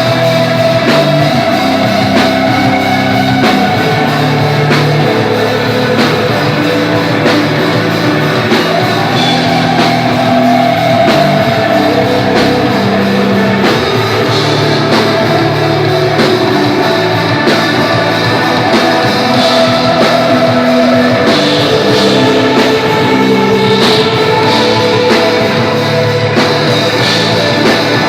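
Desert rock band playing live: electric guitar and drum kit, with long held guitar notes over a steady beat.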